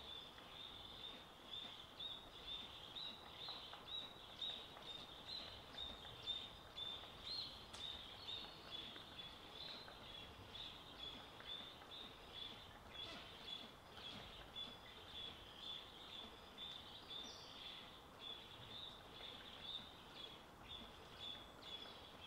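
Faint forest ambience with a steady, high-pitched pulsing call repeating two to three times a second.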